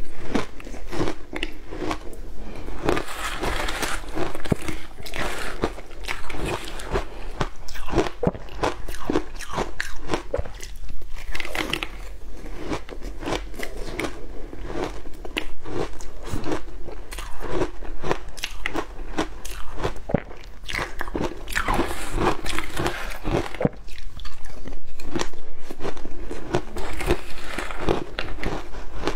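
Close-miked biting and chewing of crushed matcha ice: continuous, irregular crunching as the ice chunks break between the teeth.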